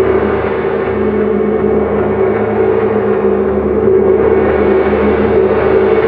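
22-inch Turkish wind gong played with soft felt mallets, sounding a loud, continuous wash over steady low tones, with no separate strikes standing out. The upper wash brightens about four seconds in.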